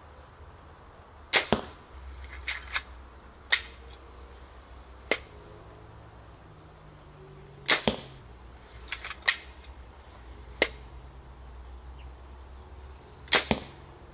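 A 3D-printed pump-action compound bow shot three times, about six seconds apart. Each release is a sharp snap followed closely by a second crack, and between the shots come smaller clicks from the bow being drawn and reloaded.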